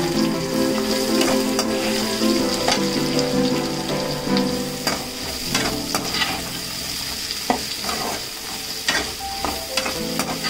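Chopped white onions sizzling in hot sesame oil in a metal kadai while a slotted metal spatula stirs them. The spatula scrapes and taps against the pan, more often in the second half.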